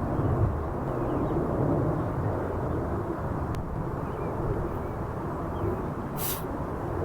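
Outdoor park ambience: a steady low rumble of distant vehicles, with a few faint high chirps. A brief hissing sniff about six seconds in.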